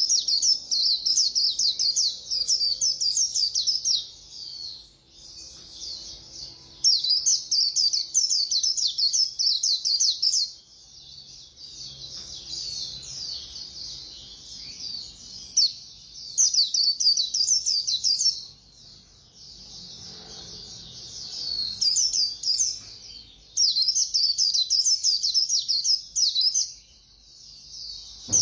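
White-eye (khuyên) singing its fast, high twittering 'líu' song: loud runs of rapid chirps a few seconds long, with softer twittering between them.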